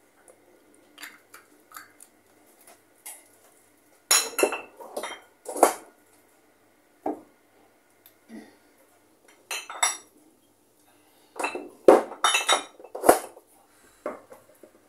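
Jars and bottles knocking and clinking together as they are picked up and moved about on a kitchen shelf, in irregular clusters of sharp clinks. The loudest clusters come about four seconds in and again around twelve seconds in.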